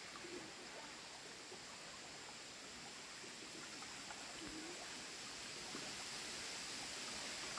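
Shallow rocky stream trickling over stones, a soft steady hiss of running water with faint gurgles, growing a little louder near the end.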